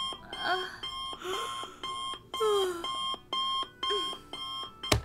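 Alarm clock beeping in short repeated bursts, with a few short sliding, voice-like sounds between the beeps, then a sharp click near the end.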